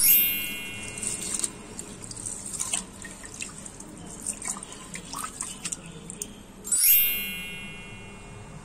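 Water sloshing and dripping as raw rice is rinsed by hand in a pot, with small splashes and clicks. Twice, at the start and again about seven seconds in, a bright ringing swell comes in suddenly and fades over about a second; these are the loudest sounds.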